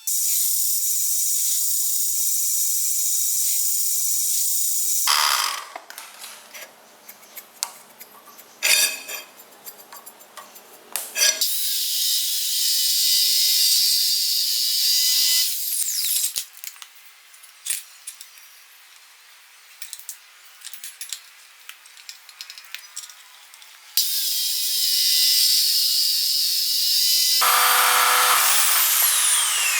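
Power cutting tool, an angle grinder, cutting steel C-channel in several long stretches of high-pitched hissing cutting noise. Between them are quieter spells of clicks and knocks as the metal is handled. Near the end the tool's whine falls in pitch as it spins down.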